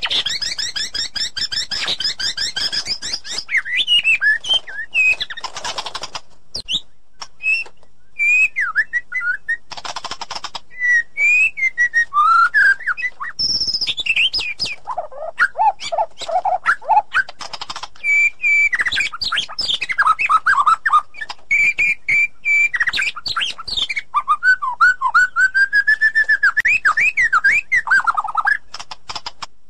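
White-rumped shama singing a long, varied song of loud whistled phrases, rapid trills and a few short harsh, rasping notes.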